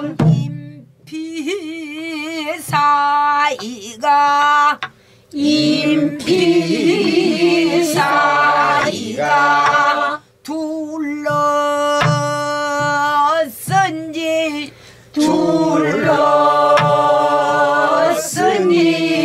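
A woman sings a pansori-style danga, holding long notes with wide vibrato and pausing briefly for breath. Now and then a stick strikes a buk barrel drum.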